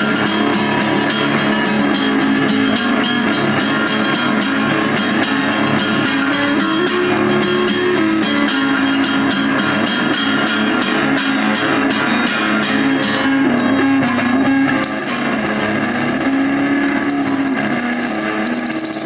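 Acoustic guitar strummed fast and steadily, stopping about fifteen seconds in; a tambourine is then shaken in a steady jingle to the end.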